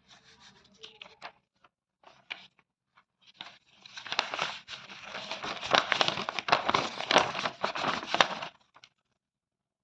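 Material being torn by hand: a few short rips in the first three seconds, then one long continuous crackling tear that stops about a second before the end.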